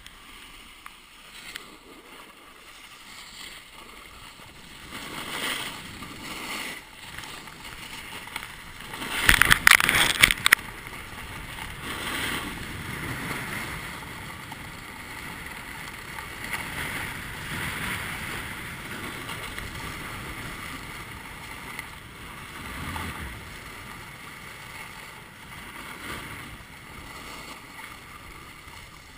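Steady hiss and scrape of a rider sliding and carving down groomed snow, picked up by a GoPro mounted on the rider, swelling and easing with the turns. About nine seconds in comes a loud burst of sharp knocks and rattles lasting over a second.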